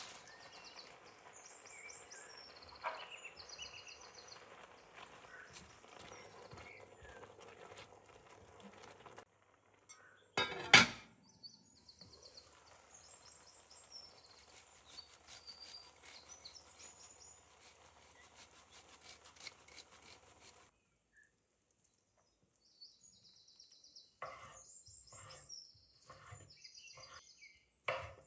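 Quiet kitchen handling noises with birds chirping in the background, a single loud knock about ten seconds in, and a run of knife strokes on a cutting board near the end.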